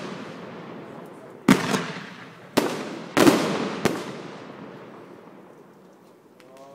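Aerial fireworks bursting: four sharp bangs, the first about a second and a half in and the last about four seconds in, each followed by a long fading echo, then the display dies away.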